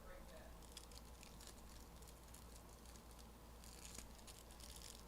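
Faint rustling and light ticking of trading cards and pack wrappers being handled, a little louder about four seconds in, over a low steady hum.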